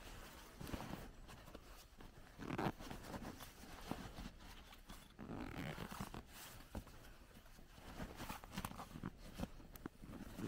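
A sleeping bag being stuffed into the bottom compartment of a 110-litre military rucksack: irregular rustling and shoving of fabric against fabric, with a louder rustle about two and a half seconds in.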